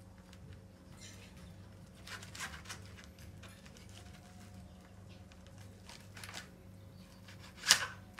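Knife and carving fork cutting roast rabbit on a platter: a few soft scrapes and clicks of the utensils against the meat and platter, with one sharp click near the end. A steady low electrical hum sits underneath.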